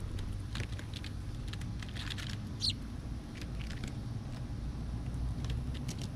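Small birds at a feeder giving short, high chirps and ticks, with one louder chirp a little under three seconds in, over a steady low rumble.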